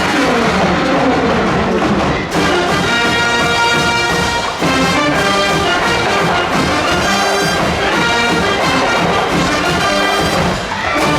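High school wind band playing loudly, with trumpets and trombones. A falling run over the first two seconds gives way to full held brass chords.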